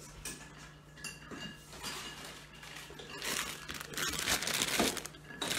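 A few light clinks of kitchenware being handled, then the crinkling rustle of a plastic bag of baby carrots being picked up and handled, which grows denser about three seconds in.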